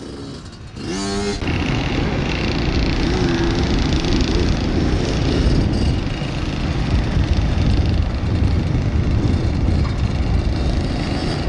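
Small dirt bike engines running as two young riders pass close by on a dirt track, the engine note wavering as they work the throttle.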